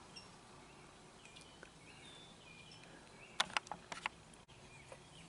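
Quiet background with faint bird chirps, and a quick run of five or six sharp clicks about three and a half seconds in.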